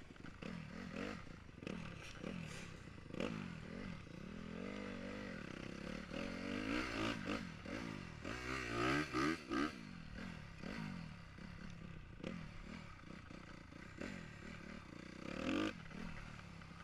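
Dirt bike engines revving, the pitch climbing and dropping again and again with throttle blips; the loudest revs come about halfway through, with another sharp rev near the end.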